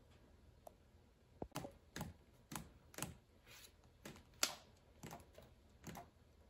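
A run of light taps and scratchy paper rustles, roughly two a second, as a cat paws and swats at a sheet of paper on the wall.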